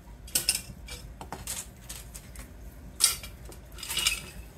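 Cut pieces of thin circuit board clattering against each other and a plastic beaker as they are pushed down and shaken to settle, in several short bursts, the loudest about three seconds in.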